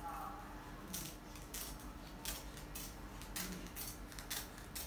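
Scissors cutting a coconut palm leaf: a string of short snips, roughly one or two a second.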